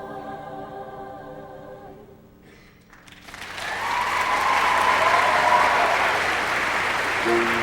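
Show choir holding the final chord of a ballad, which fades out about two seconds in; about a second later the audience breaks into applause and cheering. Near the end, a few instrument notes of the next number begin over the applause.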